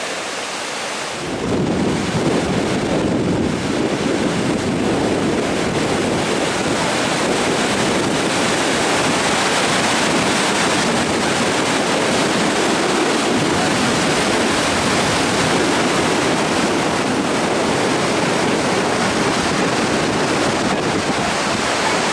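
Gullfoss waterfall: heavy falling and rushing water, a loud steady roar that grows louder and deeper about a second in.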